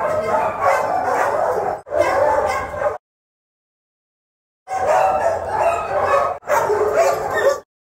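Many kennelled dogs at a dog pound barking and howling together in a dense din. The sound cuts off abruptly several times, with a dead-silent gap of about a second and a half in the middle.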